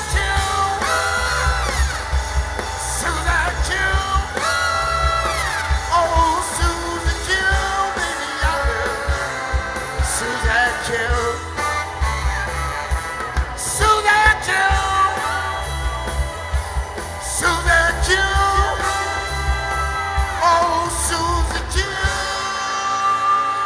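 Live blues band playing: male lead vocal over electric guitars, drums, and a horn section of trumpet, saxophone and trombone. Near the end the drums and bass stop and a final held chord rings out.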